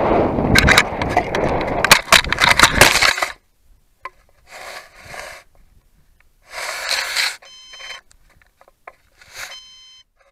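A rocket's airframe hits the ground and scrapes and knocks along it for about three seconds, then settles, with a few short bursts of noise afterwards. Short electronic beeps sound twice in the second half.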